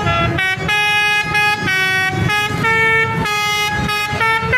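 Basuri telolet horn, a multi-tone musical air horn of the kind fitted to Indonesian buses, playing its melody. It sounds as a quick run of about a dozen loud horn notes, each held a fraction of a second before jumping to the next pitch.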